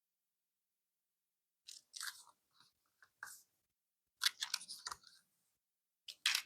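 Crinkling and crackling of packaging being handled, in several short bursts that begin about two seconds in.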